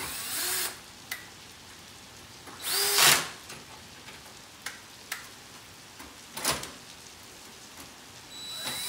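Cordless drill-driver turning the clamp screws on a circular-saw guide in four short runs, its motor spinning up in pitch at each trigger pull, with a few light clicks between runs.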